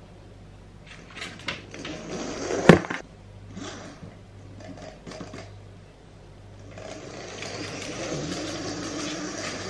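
Small electric drive motors of a Sphero BB-8 toy robot whirring as its plastic ball body rolls over a hard wooden floor. A few light clicks and one sharp knock come about two and a half seconds in. The whir becomes steady and louder from about seven seconds in.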